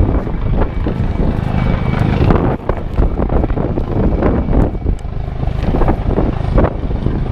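Helicopter close by, its rotors chopping loudly.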